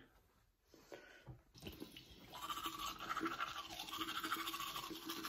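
Toothbrush scrubbing teeth in quick strokes, starting about two seconds in.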